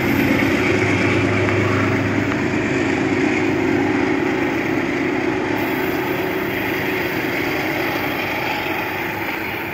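Metro-North Shoreliner push-pull train pulling away from the platform: a steady locomotive hum with a low held drone that drops out about two seconds in, fading slowly as the train moves off.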